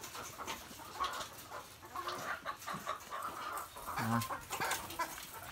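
A house full of caged laying hens clucking, many short overlapping calls, with scattered clicks.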